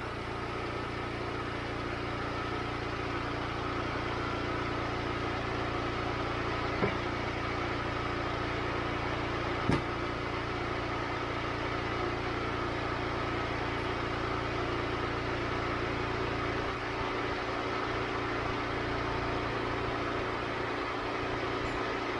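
Wood-Mizer LX25 band sawmill running steadily while it cuts through a Western red alder log. Two brief sharp knocks stand out, about seven and ten seconds in.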